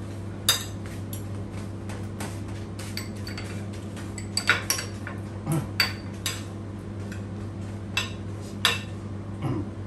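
Metal spoon and fork clinking and scraping on a plate while rice and bopis are scooped and mixed: a dozen or so irregular clinks, the sharpest about half a second in, in the middle and near the end, over a steady low hum.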